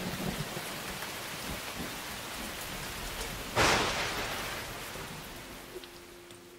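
Steady rain with a sudden clap of thunder about three and a half seconds in that dies away, the rain fading toward the end.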